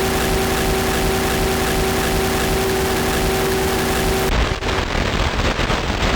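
Experimental ambient music from a DJ mix: a dense hiss-like noise wash over a held drone chord. About four seconds in it changes abruptly to a darker, choppier texture with clicks and crackle.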